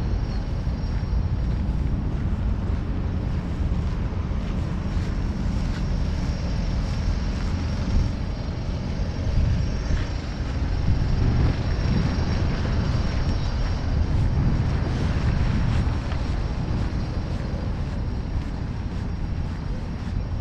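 A steady, loud low rumble of outdoor noise with no clear events in it.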